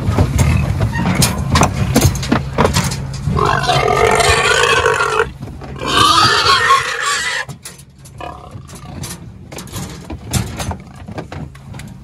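F1 breeding gilts squealing: two long, loud squeals, about three and a half and six seconds in, among scattered knocks and bangs over a low steady hum that drops away about seven and a half seconds in.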